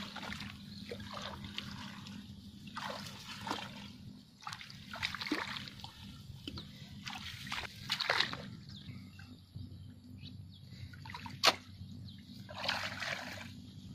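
Footsteps wading through shallow water and thick grass, with irregular splashing, sloshing and rustling. A single sharp click comes near the end.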